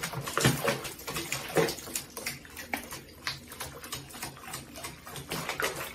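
Water splashing and sloshing in a small bath basin as a wet, soapy cat moves and paws in it, in irregular splashes.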